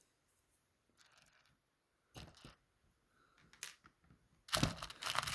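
Small clear LEGO plates clicking and rattling as they are handled and pressed onto a baseplate: a few faint clicks at first, then a louder, dense clatter of plastic pieces near the end.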